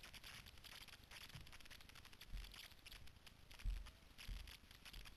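Footsteps through leaf litter and undergrowth, with leaves and twigs crackling and rustling and a few dull thumps, the loudest about three and a half seconds in.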